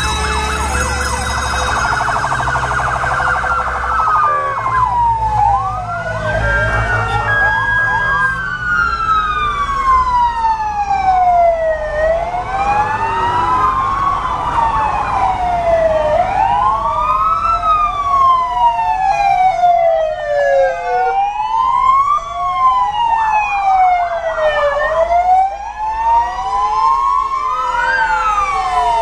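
Several emergency-vehicle wail sirens overlapping, each slowly rising and falling in pitch. For the first few seconds a fast warbling tone sounds over the low rumble of a heavy engine.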